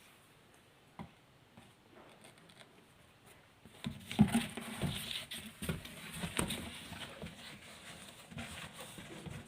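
Handling noise from unboxing a water heater: after a quiet stretch with a single small click about a second in, irregular rustling and light knocks start about four seconds in and keep going, the loudest just after they begin.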